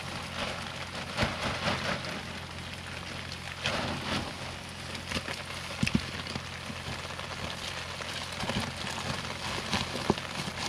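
Steady heavy rain falling, with irregular rustling and knocks of gear being stuffed into a backpack.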